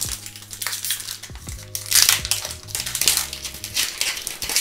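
Foil wrapper of an Upper Deck SP Authentic hockey card pack crinkling and tearing as it is ripped open by hand, in uneven rustling bursts, the loudest about two seconds in.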